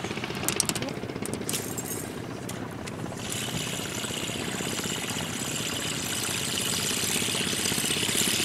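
A small engine running steadily with a fast, even chugging beat, and a hiss that comes in about three seconds in.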